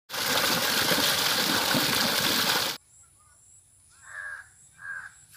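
Water gushing out in a strong jet into a channel, a loud steady rush that cuts off suddenly a little over halfway through. Then two crow caws, a little under a second apart, near the end.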